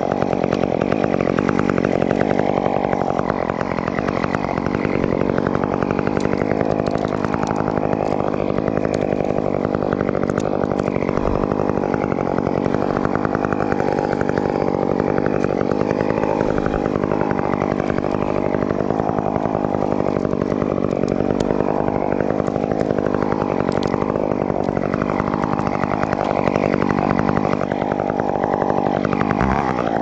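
Chainsaw running continuously at high speed, its pitch sagging and recovering again and again as it works.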